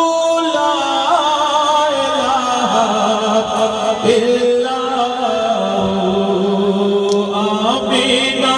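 A man chanting a naat (Islamic devotional praise poem) unaccompanied into a microphone, drawing out long, wavering melodic notes without clear words.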